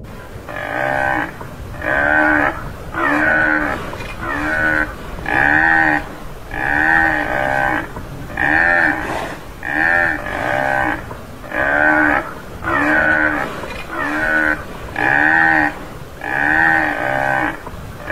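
Tamaraw (Mindoro dwarf buffalo) calling: short, bovine moo-like calls repeated about once a second, each arching up and falling in pitch.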